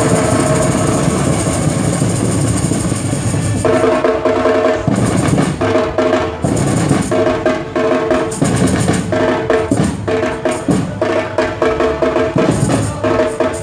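Batucada drum ensemble of surdo bass drums and snare drum playing loudly. It opens with a sustained roll for the first few seconds, then settles into a driving rhythm with short breaks. A steady pitched tone sounds along with the drums, cutting in and out with the beat.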